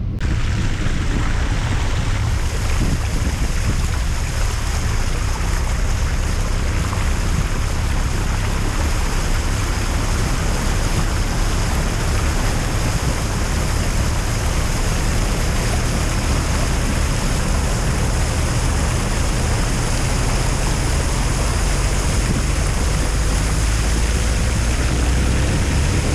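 Audi A2 driving through floodwater on the road: a steady loud rush of water spraying against the underside and wheel arches over a low rumble, starting suddenly as the car enters the water.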